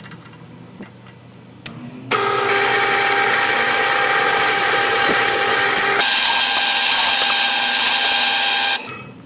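Drill press running and drilling a pilot hole with a thin twist bit into a white-faced board: a steady whine starts about two seconds in and stops just before the end, its pitch shifting about two-thirds of the way through.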